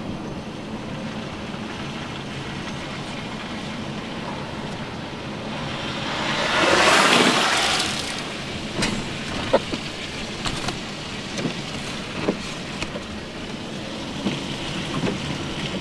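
A vehicle passing on a wet, snowy road: a steady hiss that swells and fades about seven seconds in, followed by a few scattered knocks.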